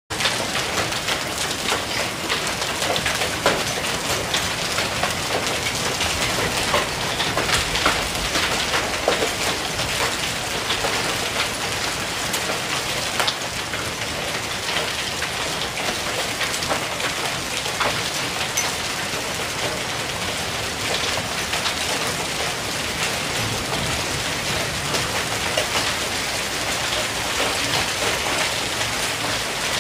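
Hail falling steadily, hailstones pelting a swimming pool's water and a hard patio in a dense patter of small clicks and splashes.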